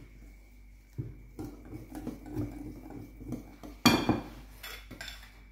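Wire whisk beating thick cake batter in a glass bowl, a run of soft repeated strokes, with one loud clink of the metal whisk against the glass bowl about four seconds in.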